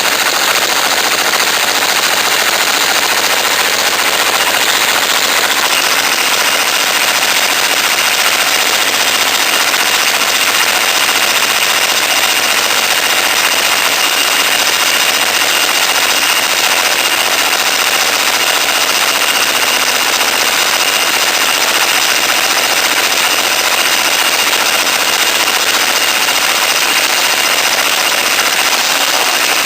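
Small go-kart engine running on the bench through a racing muffler, loud and steady without a break. A higher whine joins about six seconds in.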